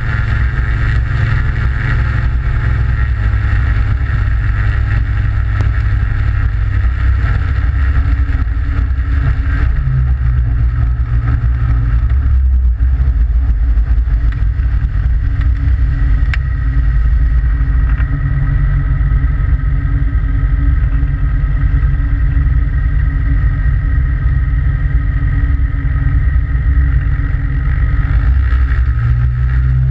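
Aventura amphibious light aircraft's engine and propeller running steadily at taxi power as it moves across the water, with water rushing along the hull. The engine note starts to rise near the end.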